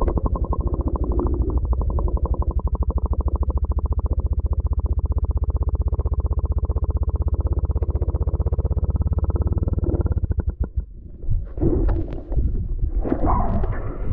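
A fast, even pulsing hum of about fifteen beats a second, heard underwater through the camera's housing, which stops abruptly about ten seconds in. Irregular knocks and water noises follow near the end as the camera is moved in the water.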